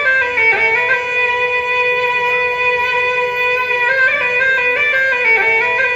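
Music on a shrill wind instrument playing long held notes. The notes hold steady in the middle and step and waver in pitch near the start and again after about four seconds.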